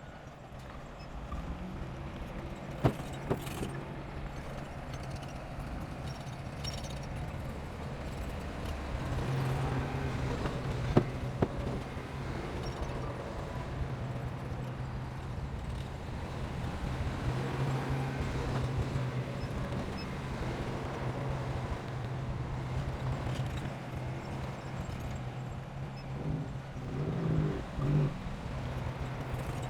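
Heavy construction machinery's diesel engine running steadily, getting louder about a third of the way through, with a couple of sharp knocks.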